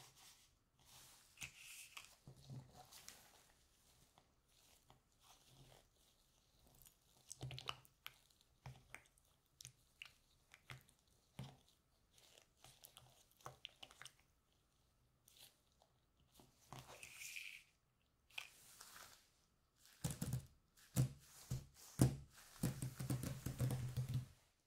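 Gloved hands handling a plastic yogurt cup, with a plastic spoon scraping and stirring the thick yogurt inside it, and faint rustles and small taps. In the last few seconds there is a busier run of knocks and rustling as things are handled on the table.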